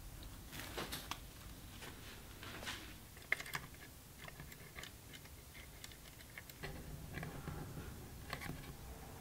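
Faint, scattered small clicks and ticks of a component's wire leads being handled and bent against the metal turrets of a turret board, with a couple of sharper clicks about a third of the way in.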